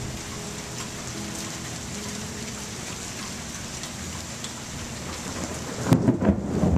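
The last piano notes die away under a steady hiss like rain. About six seconds in there is a sharp click, then louder, uneven low rumbling.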